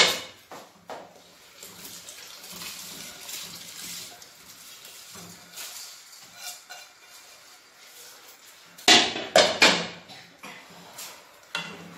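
Rice being tipped from a bowl into a pot of boiling water, a hissing, pattering pour. Near the end come several sharp metallic clatters of a ladle and a lid against the cooking pot.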